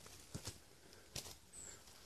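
Near quiet outdoors, with a few faint soft knocks and one short, faint high-pitched chirp about one and a half seconds in, probably a bird.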